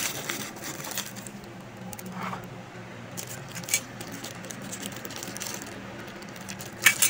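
Thin clear plastic wrapping rustling and crinkling as it is handled on a packaged item, with scattered small clicks and taps. There is a sharp click about four seconds in, and the loudest pair of clicks comes just before the end.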